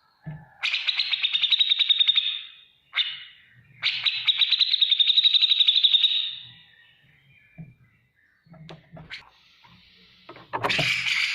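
Grey-cheeked bulbul (cucak jenggot) giving rapid ticking chatter of fast repeated notes. Two long bursts come in the first half, with a short one between them, and another burst starts near the end.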